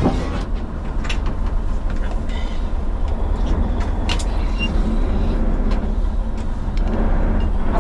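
Fishing boat's engine running steadily with a deep, constant rumble, mixed with the rush of water and wind, and a few light knocks.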